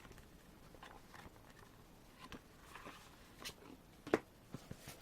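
Faint handling of a CD album package: light rustles and scattered clicks of card and paper as the photocard is taken out, with the sharpest click a little past four seconds in and a few small ticks just after.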